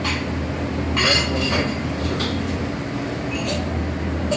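Metal spoon scraping and clinking against a ceramic plate, mostly about a second in, as a portion of semifreddo is cut, over a steady low hum.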